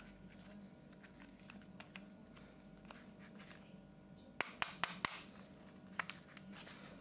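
Handling noise from a WE Glock-style gas blowback airsoft pistol with a metal slide: light scrapes and small clicks, then a quick run of four sharp clicks about four and a half seconds in and one more about a second later, over a faint steady hum.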